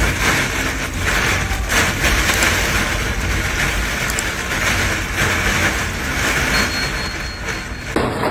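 Loud, steady storm noise: a dense rushing hiss with many small impacts, which changes abruptly near the end.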